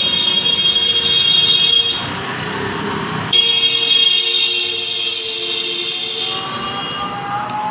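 A vehicle horn sounding two long blasts, the first about two seconds and the second about three, in a steady two-note tone over street noise, with a fainter wavering tone near the end.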